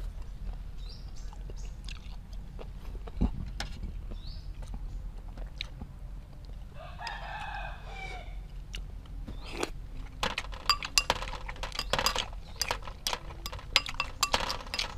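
A rooster crows once, about seven seconds in, for about a second and a half. In the second half, a metal spoon clinks repeatedly against a glass sauce bowl as snails are scooped.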